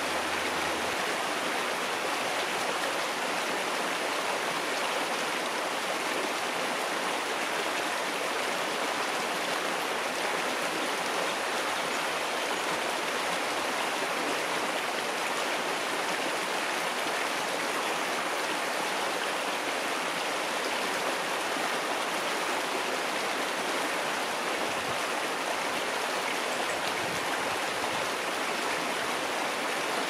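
Small creek running calmly, a steady, even rush of water that holds unchanged throughout.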